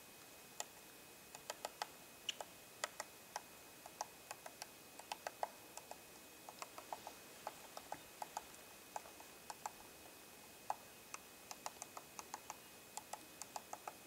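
Black-backed woodpecker pecking and chipping at tree bark while foraging: irregular sharp taps, sometimes several a second, with short gaps between runs.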